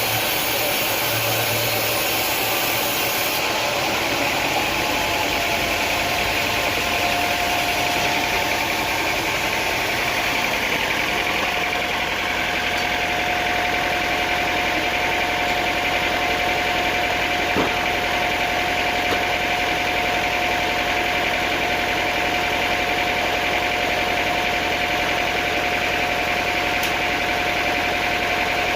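Sawmill machinery running steadily: an even motor drone with a steady whine, and a single knock a little past halfway.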